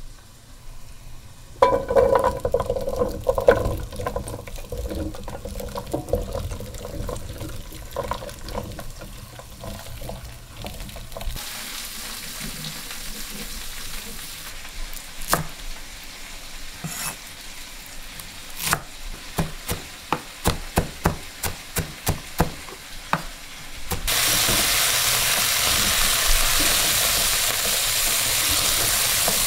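Chopped onion sizzling as it sautés in hot oil in a pot, with a spoon scraping and knocking against the pot as it is stirred. About 24 seconds in the sizzle suddenly becomes much louder and steadier.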